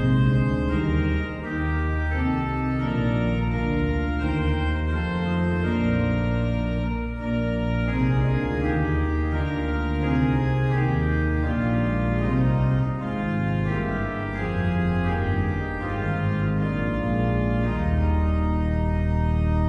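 Organ music: held chords over low bass notes, changing every second or two, with no singing.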